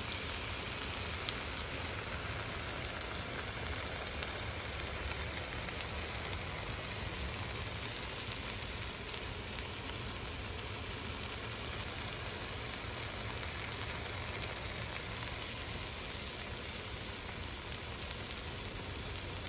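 Bitter melon and egg sizzling steadily in a hot wok as they are stir-fried, a constant frying hiss with a few faint small pops.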